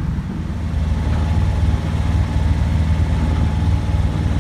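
Sailboat's engine running steadily while motoring under way, a continuous low, rapidly pulsing throb.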